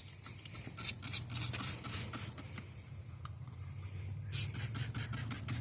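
Trigger spray bottle of boat cleaner squirting onto a paddleboard's surface in quick strokes. There are two runs of short hissing sprays, the second starting about four seconds in.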